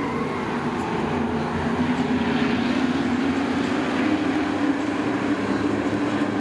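Racing trucks' engines running on a short oval track in a steady drone, their pitch dipping and then rising slightly a couple of seconds in.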